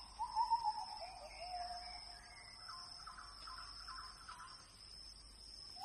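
Faint bird calls: a few short falling whistled notes, then a run of quick higher chirps.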